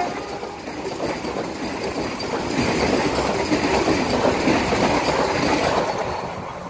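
Vande Bharat Express electric trainset passing at speed alongside a station platform: a steady rush of wheels on rail with some clickety-clack, growing louder a few seconds in as the coaches sweep by and fading near the end as the rear car passes.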